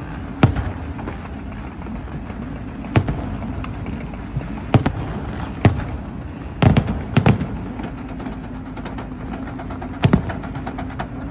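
New Year fireworks going off: about seven sharp bangs at uneven intervals, some in quick pairs, over a steady low hum.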